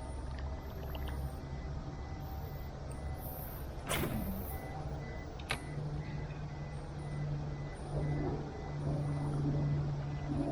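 A steady low motor hum, with a sharp falling swish about four seconds in and a short click a second and a half later.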